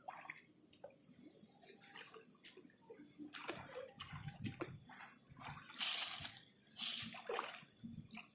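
Water splashing and dripping: scattered small drips and sloshes, with two louder splashes about six and seven seconds in.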